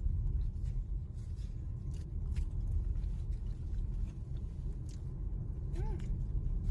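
Steady low rumble of a moving car heard from inside the cabin, with a few light clicks and a brief voice-like sound near the end.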